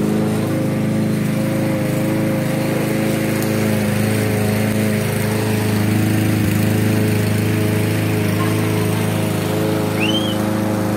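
Walk-behind gasoline lawn mower engine running at a steady pitch while mowing grass.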